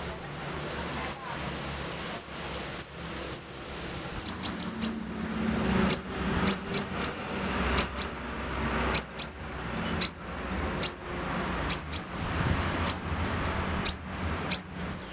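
Sogon bird giving a string of sharp, high-pitched chirps that drop in pitch, repeated about once or twice a second, with a quick run of four about four seconds in: harsh 'nembak' calls.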